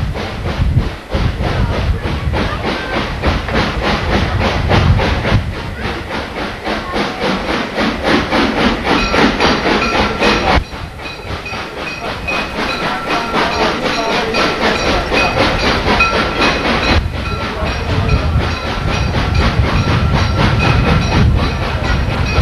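Narrow-gauge train running, heard from an open carriage window: a steady rhythmic clatter and rush of the moving train, with a thin steady high tone through the middle part and a sudden drop in level about ten seconds in.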